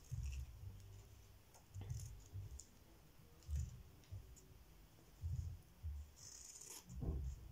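Scissors cutting cotton wax-print fabric: faint snips and clicks of the blades with soft dull knocks, every second or two.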